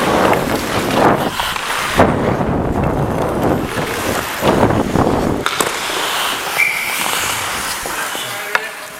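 Ice hockey skate blades scraping and carving the ice close up in hard strides, with a sharp scrape about two seconds in. After about five and a half seconds the skating eases off and the sound drops to quieter rink noise.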